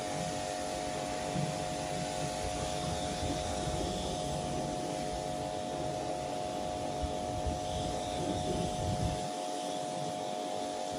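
Pressure washer running, its motor and pump giving a steady hum under the hiss of the water jet spraying onto a car's bodywork to rinse off snow foam. The low rumble drops away about nine seconds in while the hum and spray go on.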